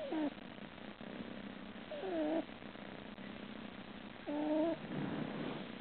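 Sleeping cat snoring: three short, pitched snores about two seconds apart, with a softer breathy one near the end.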